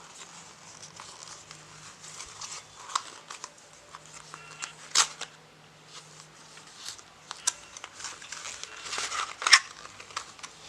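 Packaging of a smartphone box being handled: crinkling and rustling with scattered sharp clicks and taps, the loudest about five seconds in and again near the end, as the box's contents are lifted out.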